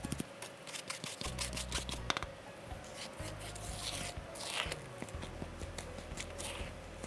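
A fine-mesh sieve shaken over a glass bowl, dry flour and cocoa sifting through with quick ticking, then a spatula folding the dry mix into the batter, scraping against the glass bowl several times. Soft background music underneath.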